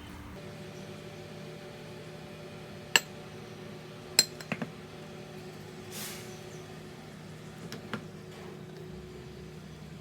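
A few sharp kitchenware clinks, the two loudest about three and four seconds in, with a short swish about six seconds in, over a steady low hum.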